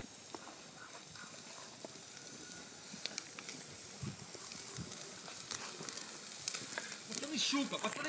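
Shashlik (skewered meat) sizzling over a barbecue grill (mangal): a steady hiss with scattered small crackles.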